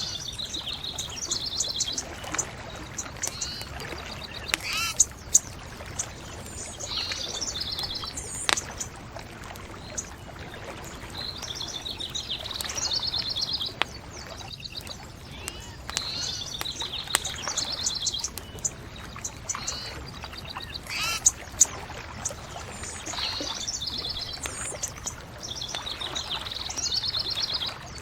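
A songbird singing short, rapid trilled phrases every few seconds over a steady hiss, with a few sharp pops from a crackling bonfire.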